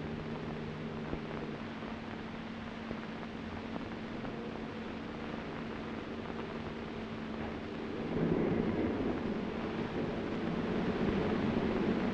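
Tugboat engine running steadily while pushing a barge, a low hum of even tones. About eight seconds in it gives way to a louder, rougher rumble.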